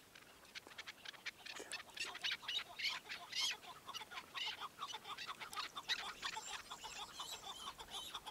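Chukar partridge calling: a fast, continuous run of short, sharp notes that grows louder about two seconds in.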